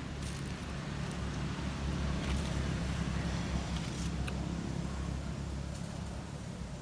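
Low engine rumble of a passing motor vehicle, swelling and then fading away, with a few faint clicks.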